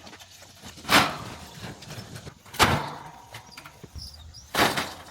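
Three short, loud scraping noises, about two seconds apart.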